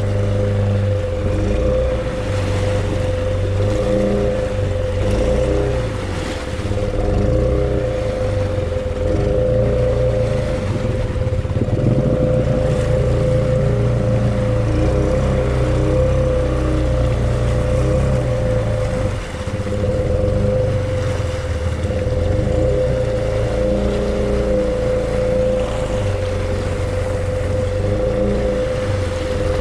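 Honda Rubicon 500 ATV engine running under load, its revs rising and falling, with a steady high whine over it.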